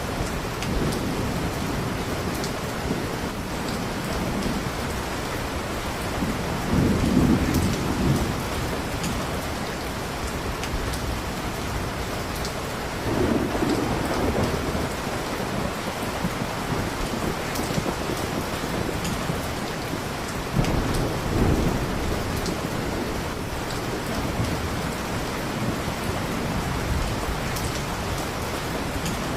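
Steady heavy rain with low rolls of thunder swelling up several times, loudest about seven seconds in and again about twenty-one seconds in.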